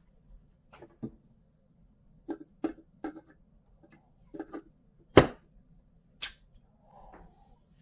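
A scattered series of light clicks and taps, like small metal tools being handled and set down on a hard work surface. One sharper knock comes about five seconds in.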